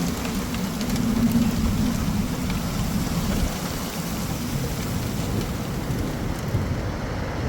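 Heavy rain falling steadily, with a continuous low rumble underneath.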